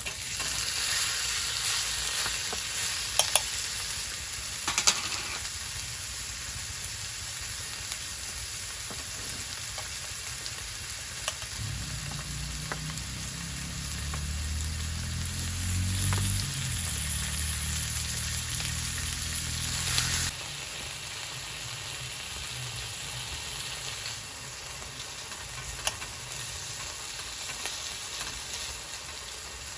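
Food sizzling over heat on a camp grill: a steady frying hiss with a few sharp clicks in the first few seconds. A low droning hum joins about twelve seconds in and cuts off suddenly about twenty seconds in.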